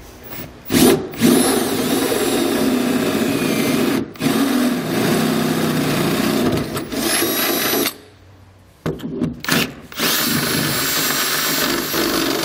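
Cordless drill boring pilot holes out to a larger size through a pickup truck's bed floor: short trigger blips, then long steady runs of the bit cutting, with a pause of about a second before the last run.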